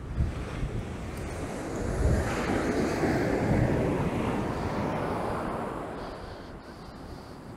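Surf washing onto the beach, swelling about two seconds in and fading away again, with wind on the microphone.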